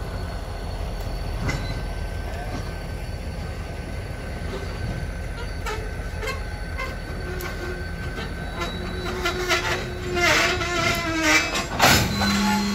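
Freight train of tank cars moving slowly, with a steady low rumble and scattered clanks. A wavering wheel squeal rises from about seven seconds in, the clanking thickens, and a loud metallic bang comes near the end.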